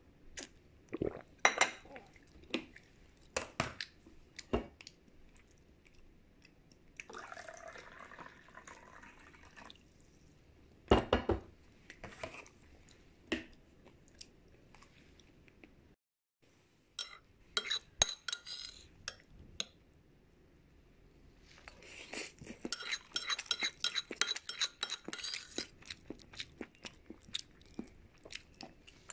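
Eating utensils clinking and scraping against a dish in a series of sharp clicks, with a brief silent gap just past the middle and a dense run of rapid clinks near the end.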